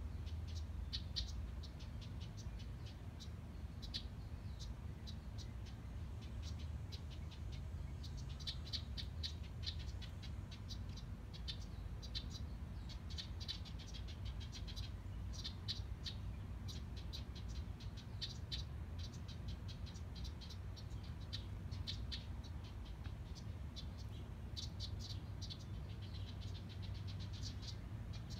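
House wren giving dry, rattling chatter calls: repeated bursts of rapid clicks, over a low steady background rumble.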